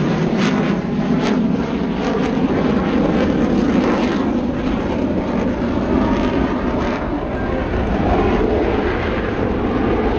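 Airplane engine noise: a steady, loud drone without a clear pitch.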